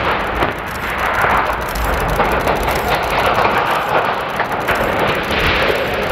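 Continuous loud rumbling roar that follows the demolition blast at the base of a concrete mine-shaft headframe, as the tower begins to topple.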